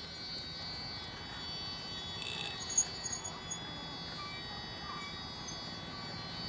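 Electrofishing inverter giving a steady, high-pitched electronic whine while its bamboo-pole electrodes are in the water, the current switched on. A few short chirps and ticks come near the middle.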